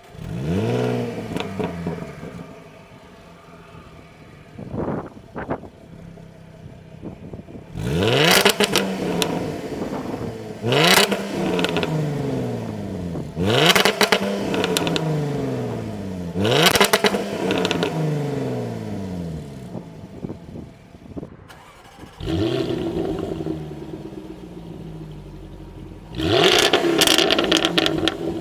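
Jaguar F-Type engine and exhaust revved while standing, flaring up at the start and then blipped hard several times, each rev climbing quickly and falling back to idle. After a break about two-thirds through it idles again, then revs repeatedly near the end.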